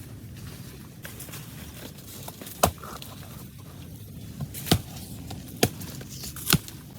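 Four sharp, separate knocks, roughly a second apart in the second half, over a steady low background rumble.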